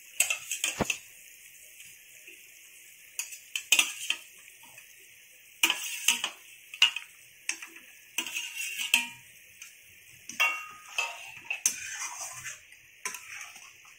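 Metal spatula clinking and scraping against a steel plate and the metal kadai as fried fish pieces are slid into simmering curry, in irregular knocks and scrapes.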